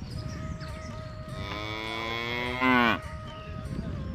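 A bovine animal mooing: one long call starting about a second and a half in, growing louder and then dropping in pitch before it cuts off near the three-second mark.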